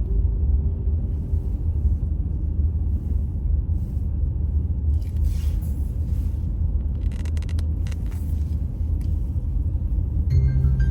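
Steady low rumble of a car driving on the road, with music coming in near the end.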